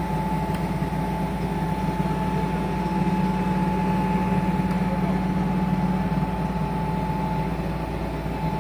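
Mobile crane's diesel engine running steadily under a hoisting load, a continuous low drone with a steady high whine over it.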